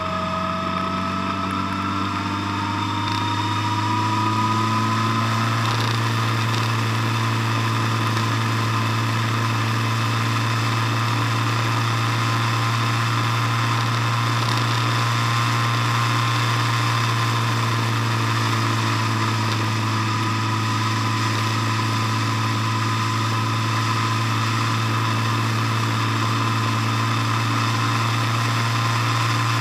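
Motor vehicle engine and road noise while driving, rising in pitch over the first few seconds as it speeds up, then holding a steady cruise with a constant low hum.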